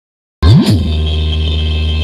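DJ sound-check music: about half a second in, a sudden loud hit with a quick rising-then-falling electronic sweep, followed by a heavy steady bass tone with a held high tone above it.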